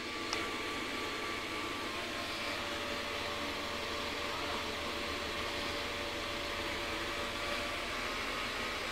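Steady electrical hum and hiss from bench equipment, with a low mains hum underneath and a small click just after the start; no spark discharges are heard.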